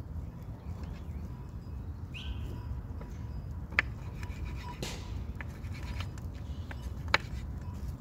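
Knife cutting raw lamb on a wooden cutting board, the blade knocking sharply on the board twice with a few fainter taps, over a low steady rumble. A bird chirps briefly about two seconds in.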